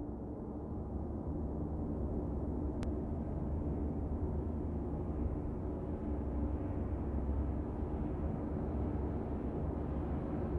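A low, steady rumbling drone, swelling gently over the first couple of seconds, with one faint click about three seconds in.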